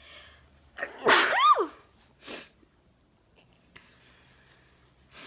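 A young woman sneezing once, loudly, about a second in: a quick intake of breath, then a burst whose voiced pitch falls away. A short breathy exhale follows, and a faint breath comes near the end.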